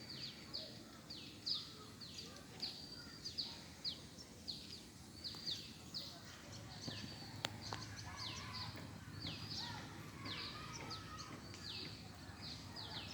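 Birds chirping steadily: short, high notes that each drop in pitch, repeated about twice a second over a low background hum. A single sharp click sounds about seven and a half seconds in.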